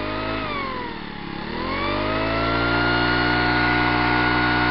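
Craftsman 25cc four-stroke leaf blower engine, new and still breaking in, running on a synthetic gasoline blend that is mostly natural gasoline. It drops in speed about a second in, then revs up and holds steady at a higher speed, running smoothly without knocking.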